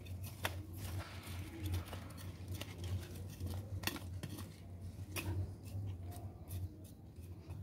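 Soil being worked in around a potted seedling by hand and with a small garden trowel: scattered light scrapes and clicks, over a steady low hum.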